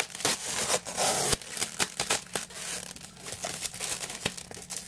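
Packaging crinkling and tearing as it is pulled open by hand, in irregular rustles with sharp crackles.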